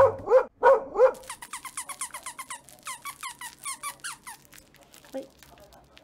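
An excited toy poodle whining in a rapid run of short, high-pitched squeals, about four or five a second, that fades out after about four seconds.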